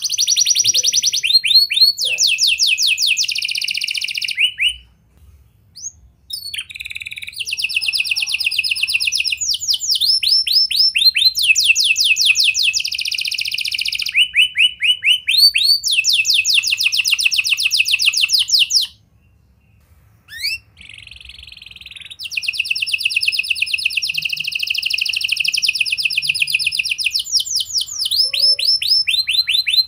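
Domestic canary singing: long rolling trills of rapidly repeated notes, in phrases of a few seconds that shift in pitch. The song breaks off twice, briefly, about five and nineteen seconds in.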